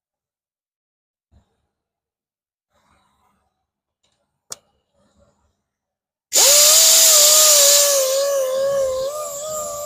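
A few faint clicks and one sharp click. About six seconds in, a power grinder with an aggressive grinding disc starts with a wavering whine and a loud hiss, grinding deep curb rash out of an alloy wheel. The hiss eases after the first second or so.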